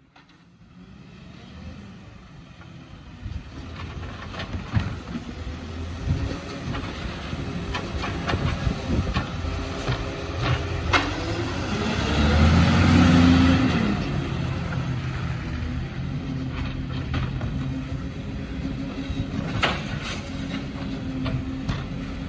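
Diesel engine of a Volvo side-loading garbage truck growing louder as it approaches, loudest and rising in pitch about halfway through as it passes close by, then running on steadily as it pulls away. A few sharp knocks sound over the engine.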